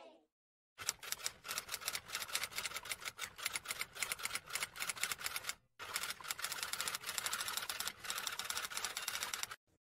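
Rapid, even clicking like typing, several clicks a second, in two runs with a brief break about six seconds in.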